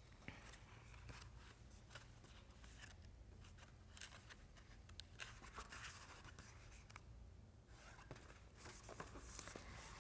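Faint rustling and flicking of paper pages as a small book is leafed through, scattered soft page sounds over near-silent room tone.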